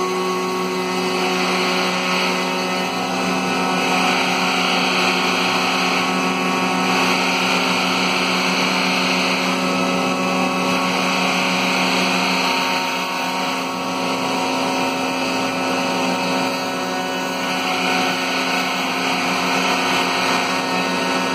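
Maslow CNC's router spinning and cutting a slot through plywood: a steady motor whine with the bit chewing through the wood, the cutting noise swelling and easing every few seconds as the cut goes on.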